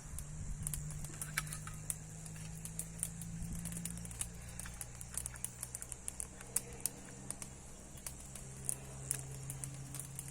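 Wood fire crackling, with many small irregular pops and snaps over a steady low hum.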